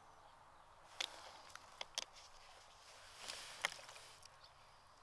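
Quiet handling noise: a handful of light, sharp clicks and knocks, scattered about a second apart, against a faint hiss.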